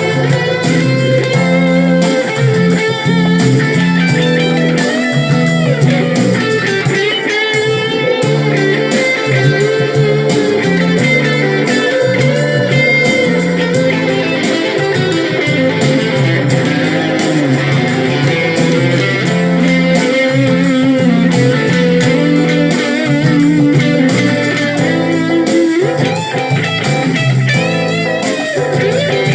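Electric guitar music, a continuous run of notes with some bent, wavering notes, at a steady loud level.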